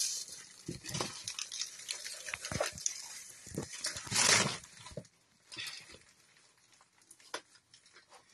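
Plastic wrapping and packing tape being picked at and torn open by hand: irregular crackles and rips, with the loudest tear about four seconds in, quieter towards the end.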